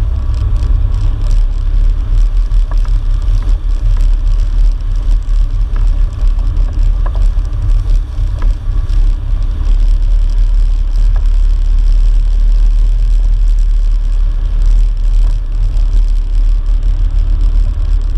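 Off-road vehicle engine running steadily while riding a rough dirt trail, heard as a heavy, fluttering low rumble with scattered knocks as the vehicle bounces along.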